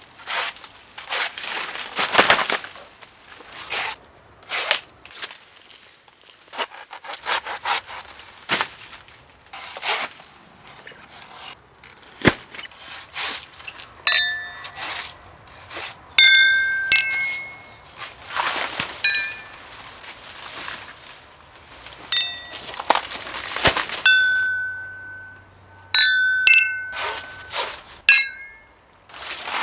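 Drinking glasses, some cut crystal, clinking together in a toast several times over the second half, each clink ringing on in a clear high tone. Before that, rustling and swishing noises.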